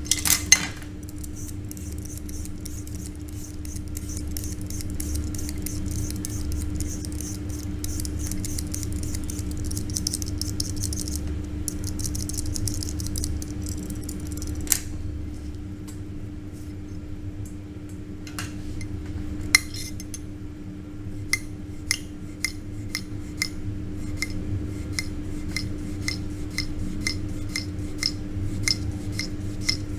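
A hand peeler scraping fast, repeated strokes along a raw potato, then, after a pause, a knife slicing it thin, each cut ending in a sharp tap on the plastic cutting board about twice a second. A steady low hum runs underneath.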